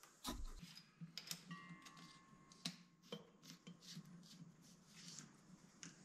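Faint handling noises: a scattering of light clicks and taps as a brass hose fitting is worked by hand on the core drill's water line, with a duller knock about a third of a second in.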